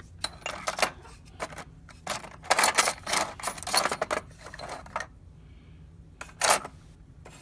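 Small metal tools clinking and clattering as they are picked up and moved about in a machinist's toolbox drawer, a quick run of clicks for about five seconds, then a pause and one more clatter near the end.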